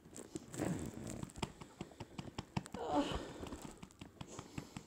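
Rustling and irregular small clicks and knocks from clothing and handling close to a body-worn camera's microphone, with a faint vocal sound about three seconds in.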